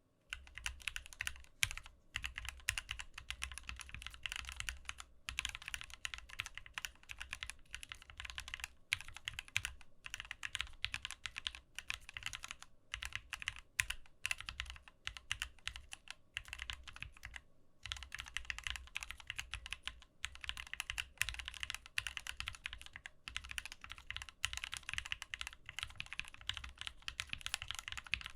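Typing on a Keychron Q4 60% mechanical keyboard with an aluminium case: a fast, continuous run of keystrokes, broken by short pauses every few seconds.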